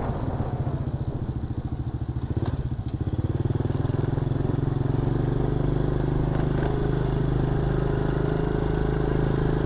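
Honda Astrea Star's small four-stroke single-cylinder engine at low revs, its separate firing beats audible for about three seconds, then picking up and running steadily as the bike rides on.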